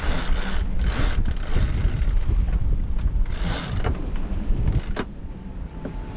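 Sailboat sheet winch ratcheting in four short spells as the genoa is unrolled and sheeted in, over a steady rumble of wind on the microphone.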